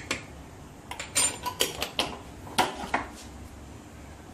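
Metal spoon clinking against a cooking pot and jar as sugar is spooned in: about a dozen sharp, irregular clinks, most of them in the first three seconds.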